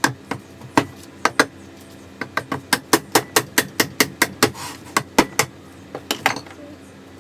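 A hammer striking metal in a run of sharp taps, uneven at first, then about four or five a second, stopping about six seconds in.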